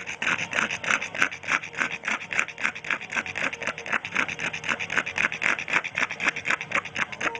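Pug making a fast, even run of short noisy strokes, about five a second.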